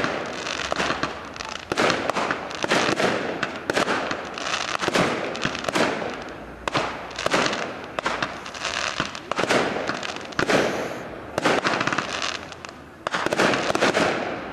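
Fireworks display: aerial shells bursting in a rapid series, about two bangs a second, each bang trailing off in an echo.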